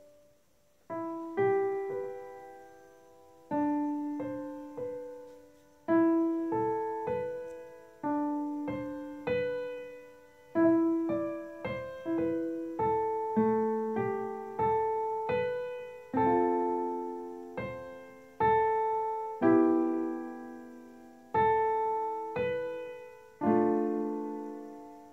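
Software grand piano playing back a slow, gentle instrumental melody over chords, each note struck and left to ring and fade.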